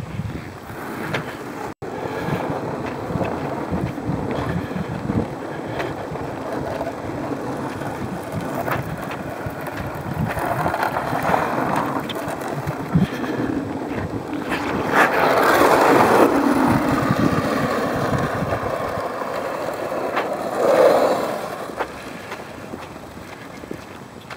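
Steady scraping hiss of travel over smooth lake ice, with wind on the microphone. It grows louder about fifteen seconds in and eases off near the end.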